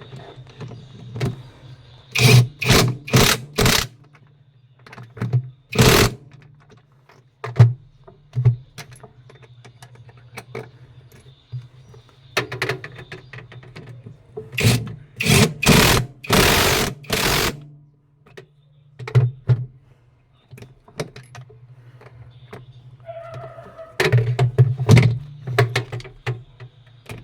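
Repeated knocks, clicks and clattering of parts and tools handled while an automatic washing machine is cleaned and worked on, in loud clusters of short hits over a steady low hum.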